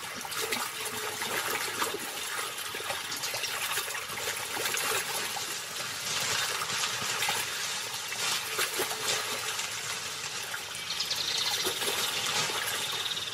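Water sloshing and splashing as a jaguar hauls a dead caiman through shallow water, with scattered small splashes and knocks.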